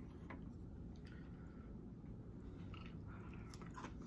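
Faint chewing of a mouthful of food, with a few soft clicks near the end.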